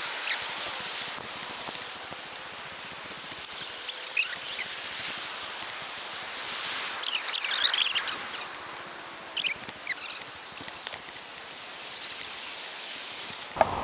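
Creekside ambience while walking a grassy stream bank: a steady hiss of running water with many faint crackling ticks of footsteps and rustling grass, and a few short bird chirps about seven and ten seconds in.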